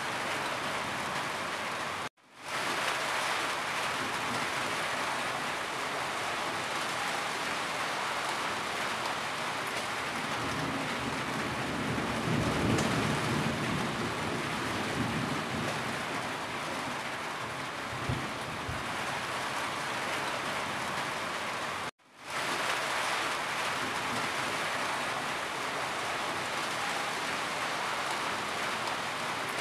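Steady heavy rain drumming on a corrugated tin roof, with water running and dripping off the roof edge. A low rumble swells in the middle, and the sound cuts out for a moment twice, about two seconds in and again about two-thirds of the way through.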